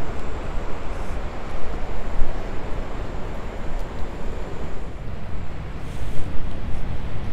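Wind buffeting the microphone: a loud, rough, uneven rumble and rush with no pitched sound in it.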